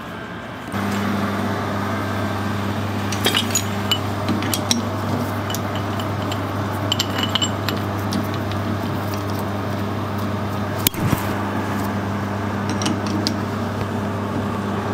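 Scattered metal clinks and knocks as an aluminium tube is set in a metal lathe's three-jaw chuck and the chuck key is turned to tighten the jaws. Under them a steady electrical hum starts about a second in.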